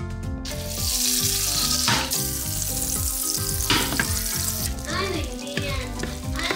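Butter sizzling in a hot nonstick frying pan. The sizzle starts about half a second in and eases off after about four and a half seconds, as a mixture is poured into the pan.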